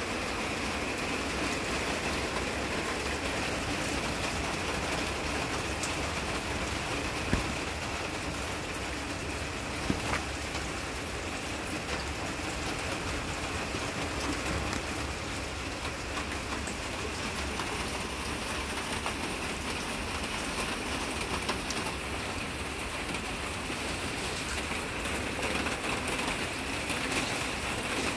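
Heavy rain falling steadily on a greenhouse, an even hiss with no let-up. A couple of sharp taps stand out about a quarter of the way in.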